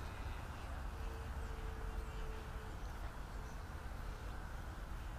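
Wind buffeting the microphone: a steady low rumble with a hiss over it. A faint steady whine sounds for a second or two about a second in.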